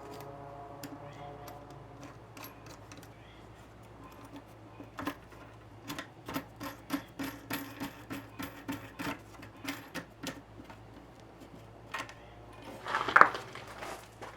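Small metal lock parts clicking and clinking as a new key-operated cam lock is fitted into an RV compartment door. A run of sharp clicks comes at about two to three a second, with a louder clatter near the end.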